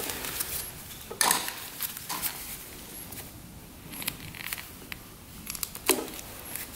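Light clicks, taps and rustling as a plastic inline fuel filter and rubber fuel line are handled and fitted together, with a sharper knock about a second in and another near the end.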